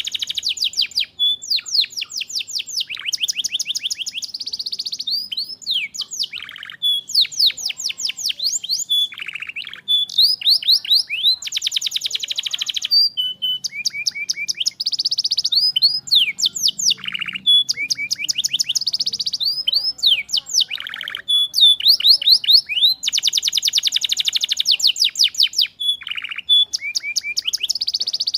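Canary singing a long, continuous song of fast rolling trills and rapid runs of repeated high notes, phrase after phrase with only brief gaps.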